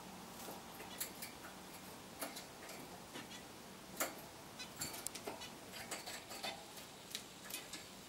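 Small pet cage birds, a male zebra finch among them, giving short, sharp chirps and ticking calls at irregular intervals, the sharpest about four seconds in. A faint steady low hum sits underneath.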